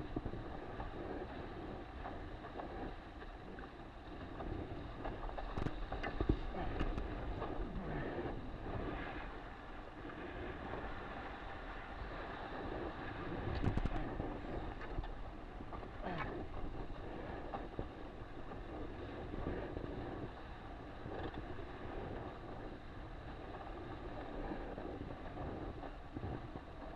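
Water rushing and splashing along the hull of an RS600FF foiling dinghy under sail, with wind buffeting the microphone. A few sharp knocks stand out partway through.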